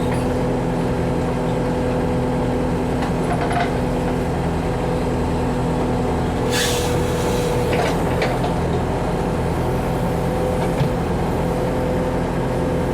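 Backhoe's diesel engine running steadily at a constant pitch while trenching, with a few short noisy sounds from the work, the strongest about six and a half seconds in.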